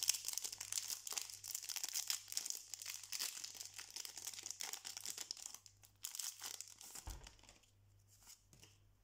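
Foil wrapper of a Pokémon TCG booster pack crinkling and tearing as it is opened by hand. The crackle is dense for about six seconds, then thins out to a few soft rustles near the end.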